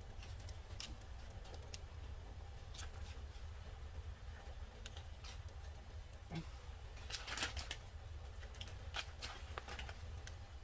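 Wood fire crackling: irregular sharp pops and clicks, thickest about seven seconds in, over a steady low hum.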